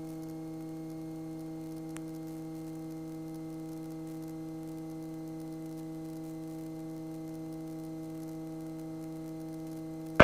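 Steady low hum with evenly spaced overtones and a faint hiss in the cockpit audio of a light training aircraft in flight, holding one pitch throughout, with a faint click about two seconds in.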